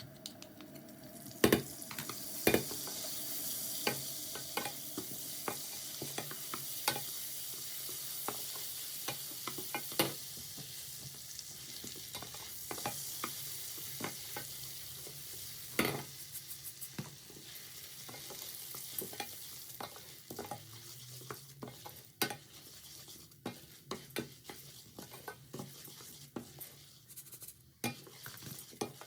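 Food sizzling in a frying pan while a utensil stirs it, clinking and scraping against the pan. The sizzle starts about a second in and dies down in the second half, leaving scattered clinks.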